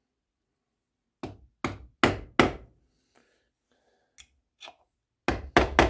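Sharp knocks of work on a wooden rifle stock: four strikes about 0.4 s apart, a few faint ticks, then three more strikes in quick succession near the end.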